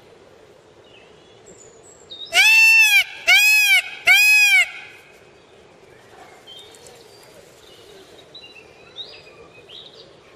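Indian peafowl (peacock) giving three loud calls in quick succession, each cry rising and then falling in pitch, about two seconds in; faint small chirps follow.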